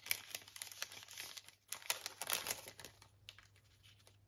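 Clear plastic cellophane packet crinkling as hands open it and slide out chipboard embellishments; the irregular crackling is busiest at first and dies away in the last second.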